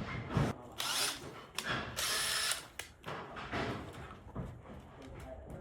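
Impact driver running in a short burst about two seconds in, driving a screw through J-channel, among scattered clicks and knocks of handling.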